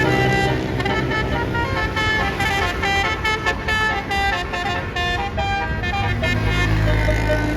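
Basuri telolet multi-tone air horn on a bus playing a quick melody, its notes stepping up and down several times a second. A low engine rumble runs underneath and grows stronger near the end.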